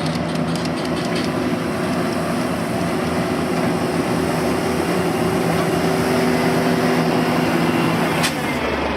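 Heavy road-paving machinery's engine running steadily under a noisy mechanical rumble, with a few light clicks in the first second and one sharp click just after eight seconds.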